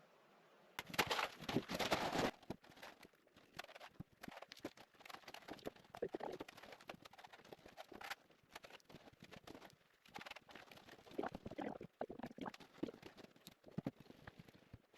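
Gravel stones clattering and crunching as they are tipped and spread for a slab sub-base, with a dense rush of stones about a second in and scattered clicks after it.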